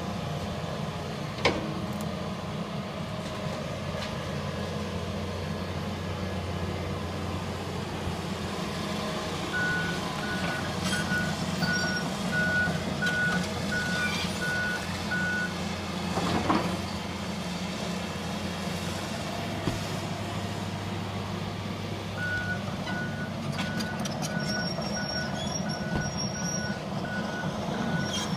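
John Deere excavator's diesel engine running steadily under work, with a couple of sharp knocks from demolition debris. A backup alarm beeps about one and a half times a second in two spells, a third of the way in and again near the end.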